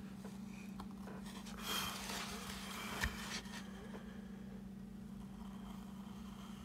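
Hand carving chisel cutting into wood: a short scraping cut about two seconds in, then a light sharp click about a second later, over a steady low hum.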